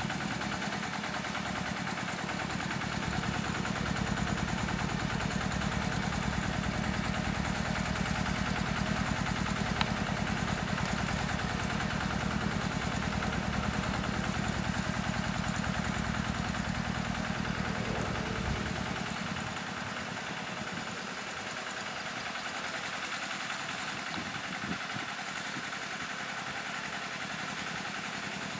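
KRT 140 small tractor's engine running steadily with a fast, even chug as it pulls a plastic-mulch laying rig along a planting bed. Its low rumble drops away about two-thirds of the way through, leaving a thinner, slightly quieter engine sound.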